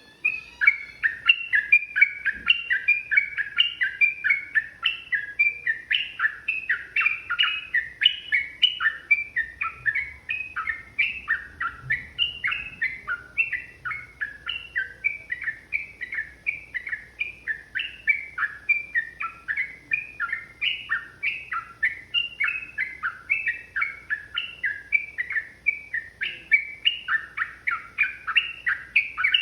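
Yellow-vented bulbul (trucukan) singing a long, unbroken run of quick chattering notes, several a second, starting abruptly and never pausing. This is the fast, sustained 'ropel' song.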